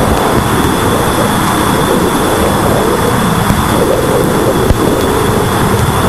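Voyager 2 Plasma Wave Subsystem (PWS) recording played as sound: a loud, dense rumbling hiss full of crackles, with a steady high tone above it and one sharper click a little before the end.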